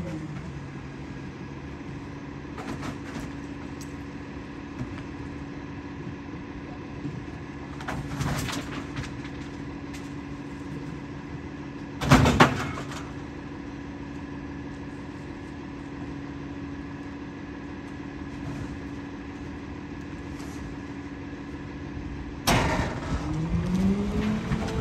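Rear-loader garbage truck's diesel engine idling steadily while trash is thrown into the hopper, with thumps as items land, the loudest about twelve seconds in. Near the end the engine suddenly revs up as the packer's compaction cycle starts.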